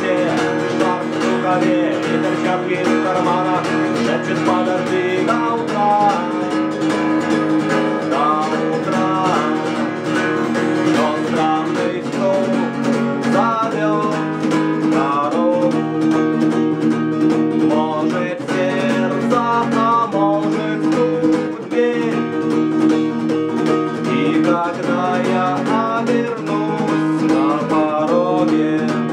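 Instrumental break of a guitar cover song: acoustic guitar chords held under a higher melody line that bends and wavers.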